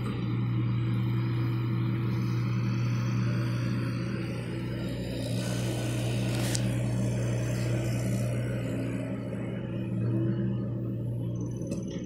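John Deere compact excavator's diesel engine running steadily under load as the boom and bucket dig and swing. A brief sharp sound comes about halfway through.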